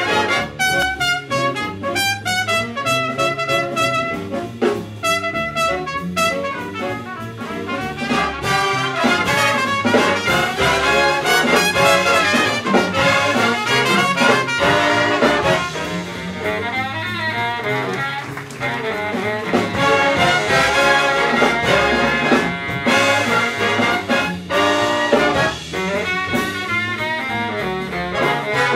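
Jazz big band playing live: trumpets, trombones and saxophones in full ensemble over upright bass.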